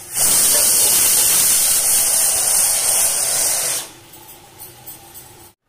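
Aluminium pressure cooker on a gas burner letting off steam through its weighted whistle: a loud, steady hiss lasting about three and a half seconds that cuts off suddenly. The whistle marks that the cooker has come up to full pressure.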